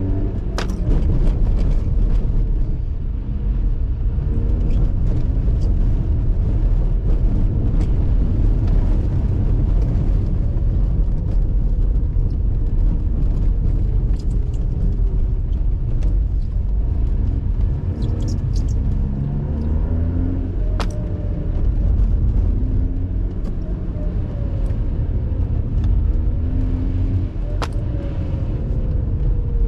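Mazda RX-8's two-rotor Renesis rotary engine on a track lap, revving up and easing off several times as it pulls through the gears, over a heavy rumble of road and tyre noise. A few sharp clicks stand out.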